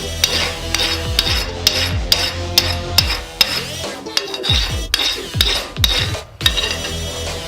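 Hand file rasping on steel in quick repeated strokes, over background music with a steady beat.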